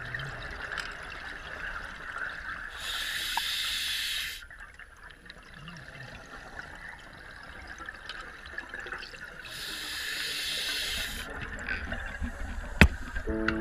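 Scuba diver's breaths through a regulator, heard underwater: two long breaths of about a second and a half each, about seven seconds apart, over a faint steady low rumble. A sharp click near the end.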